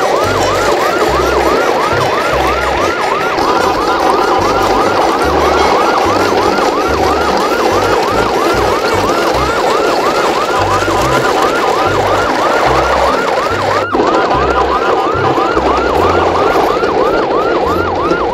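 Emergency-vehicle yelp siren, a fast rising sweep repeating about three times a second without a break, with an uneven low pulsing underneath.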